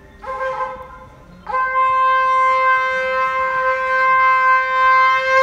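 A conch shell (shankh) blown for the aarti: a short blast, then about a second and a half in a long, steady held note at one pitch.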